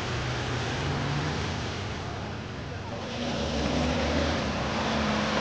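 Engine of a 4x4 SUV running steadily as it drives through a flooded, muddy creek, with water rushing and splashing around the wheels. The engine note changes about three seconds in.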